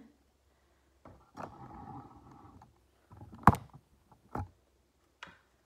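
Handling noise around a small desk fan: a scraping rustle, then a sharp knock about three and a half seconds in and two lighter knocks after it.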